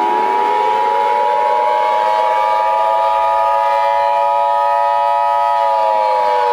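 Emergency Alert System attention signal: the steady two-tone alarm (853 and 960 Hz) sounding together, cutting off abruptly at the end. Over it, a civil defense siren winds up from low pitch at the start, holds, then begins to wind down near the end.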